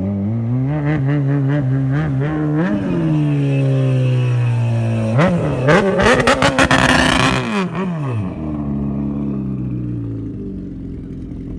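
Car engine revving under load as the car climbs a launch ramp, its pitch rising and falling. About five seconds in, a loud rushing hiss joins it for a couple of seconds.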